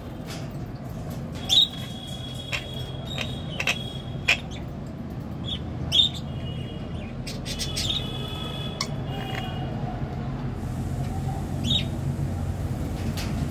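Pet parrot giving short, sharp chirps and squawks, scattered through the span with a few loud peaks, some running on into brief high whistles. A steady low hum sits underneath.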